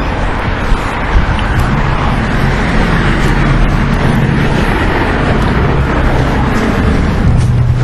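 Steady motor-vehicle noise: a low, even engine hum under a broad rumble and hiss.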